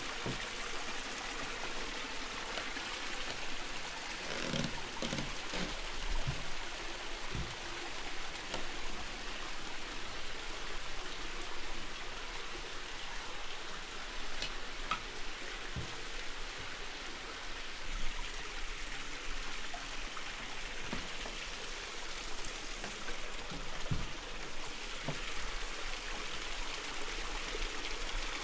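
Steady running water, with a few soft low knocks scattered through it.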